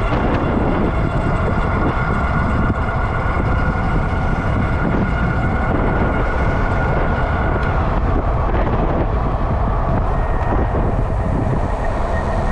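Wind buffeting the microphone while riding an electric bike at speed, with a steady high whine from the electric motor that drops out about two-thirds of the way through.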